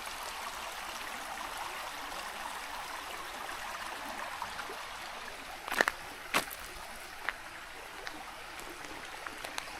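Steady rush of flowing stream water, with two sharp clicks about six seconds in and a few faint ticks after.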